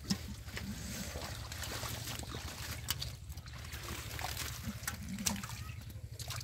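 Hands splashing and squelching in shallow muddy water, with water trickling and a few short sharp clicks, over a steady low rumble.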